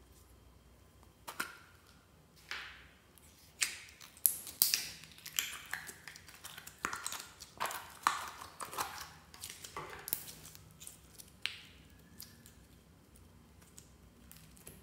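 Pink slime being squeezed out of its soft plastic tub: a run of sharp sticky clicks and pops from the slime and the squeezed tub. The clicks are densest in the middle and thin out near the end.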